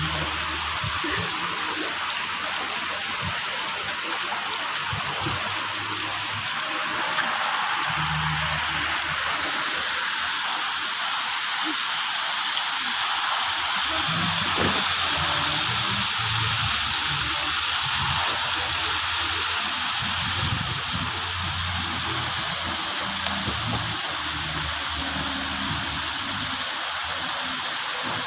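Steady rush of water falling and splashing into a water-park pool, from the spray arches and slide outlets, growing louder about eight seconds in.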